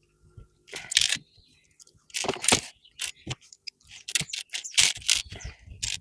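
Small plastic building-brick pieces clattering and clicking as they are sorted through and pressed together, in several short bursts of rattling.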